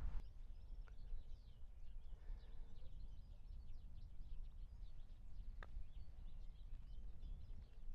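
Birds chirping and twittering in short repeated calls over a low rumble of wind on the microphone. Two faint clicks, about a second in and again near the end.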